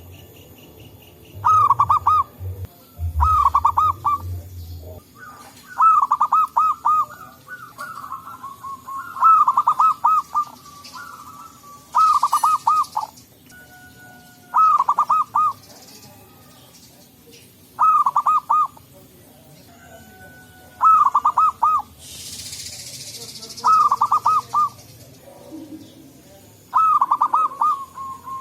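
Zebra doves (perkutut) cooing: short phrases of quick, rippling staccato coos, repeating every two to three seconds.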